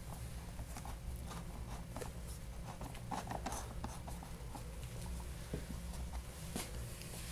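Screwdriver driving screws into a motorcycle's plastic airbox lid: faint, irregular clicks and scratching as the tip and threads turn, over a low steady hum.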